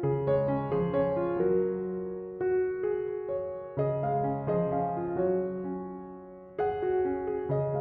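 Background music: gentle piano chords and melody, notes struck and left to ring and fade.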